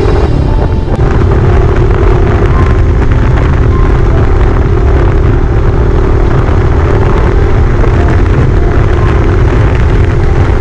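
Dirt bike's engine running steadily under way, with heavy wind rumble on the microphone.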